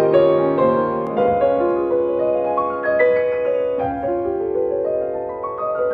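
Solo piano music: flowing upward arpeggios whose notes ring on over one another, growing slightly softer toward the end.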